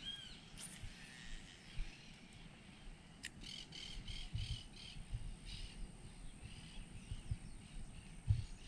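Birds calling: a few short arched calls at the start, then a run of repeated calls, several a second, from about three seconds in, fading after. A few low thumps under them, the loudest near the end.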